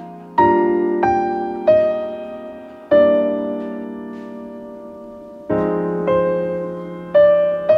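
Slow, gentle solo piano music: single notes and chords struck about a second apart, each left to ring and fade.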